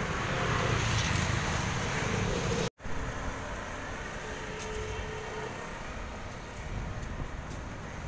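Street traffic noise: a steady rumble of road vehicles, louder in the first few seconds, with a brief dropout about three seconds in.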